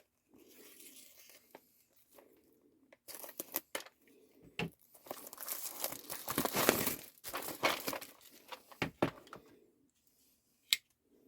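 Packaging on a plastic case being cut open with a knife and torn off by hand: irregular crinkling and tearing, loudest about halfway through, with a few sharp clicks.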